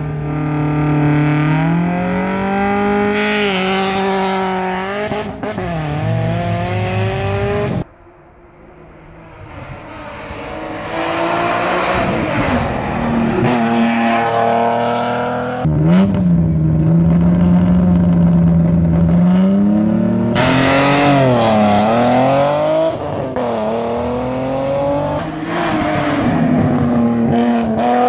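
BMW rally car engines at full throttle. First one is held at high revs at the start line. After a sudden break about eight seconds in, others accelerate hard past, their revs climbing and dropping back again and again with each gear change.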